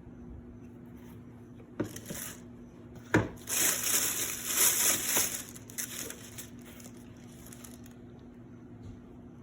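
Paper crinkling and rustling as it is handled, in a short burst and then a longer stretch of several seconds, with a single knock just before the longer stretch, over a steady low hum.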